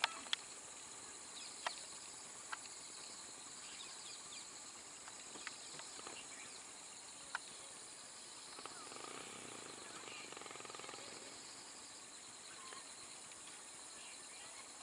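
Faint outdoor background: a steady high-pitched hiss with a few sharp clicks, the loudest near the start.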